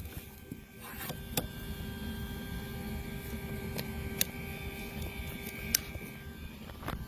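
Music cuts off; what is left is a low steady hum with a few faint clicks.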